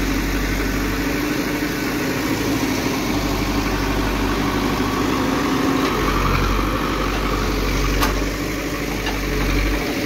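CAT 424B backhoe loader's diesel engine running steadily while the backhoe arm digs soil and loads a tractor trolley.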